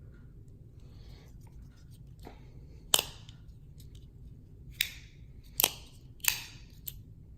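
Benchmade Bailout folding knife being worked open and shut: a run of sharp metallic clicks as the blade snaps into place, about five of them beginning about three seconds in, the first the loudest. The action is still stiff and needs breaking in.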